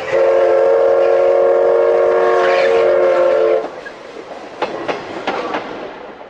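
Train horn blowing one long chord of several notes for about three and a half seconds, then a quieter rumble with a few sharp clacks.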